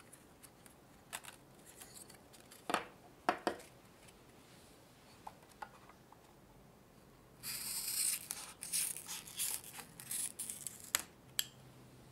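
Thin clear plastic mousse film being handled and snipped with scissors: a few light clicks and taps in the first few seconds, then from about seven seconds in a run of crisp crinkling and snipping strokes lasting about three seconds.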